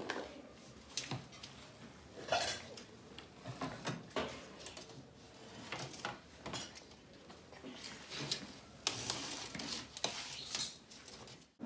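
Dishes and cutlery clinking and scraping at irregular intervals while food is being served, with a few sharper knocks.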